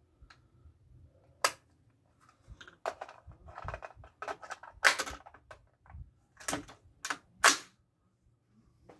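Sharp metallic clicks and clacks of an AR-15-type rifle being handled and readied to fire, a scattered series with the loudest about five and seven and a half seconds in.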